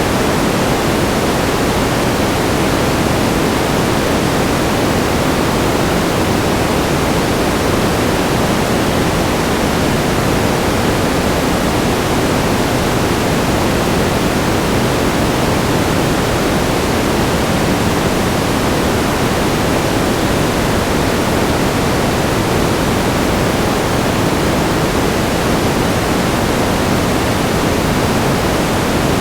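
Steady static noise: an even, unbroken hiss with its weight in the lower middle, like pink noise.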